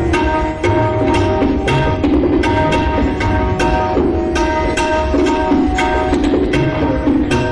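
Tabla solo in the Delhi gharana style: quick, dense strokes on the tuned right-hand dayan ring out over the deep bass strokes of the left-hand bayan.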